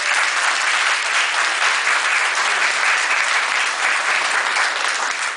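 A roomful of people applauding steadily, the clapping dying away near the end.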